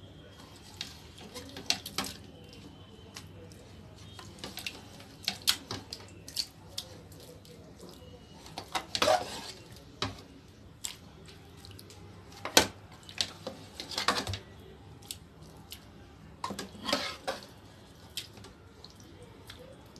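A metal spoon clinking and scraping against aluminium cooking pots as thick beef curry is scooped out and laid onto rice: scattered clinks with a few longer scrapes.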